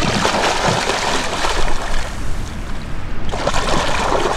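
Water splashing and churning in repeated bursts as a hooked pike thrashes at the surface while being landed.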